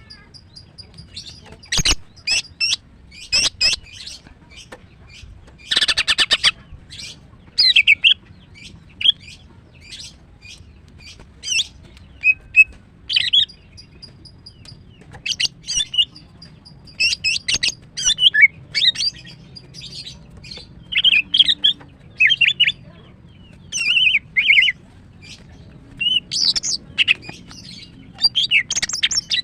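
Female green leafbird (cucak ijo) calling in short, varied high chirps and whistled phrases, clustered every second or two. There is a sharp click about two seconds in.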